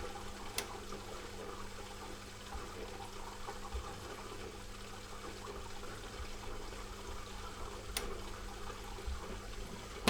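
Dishwasher washing: water spraying and sloshing inside the tub over a steady motor hum. Two sharp clicks, one near the start and one about eight seconds in.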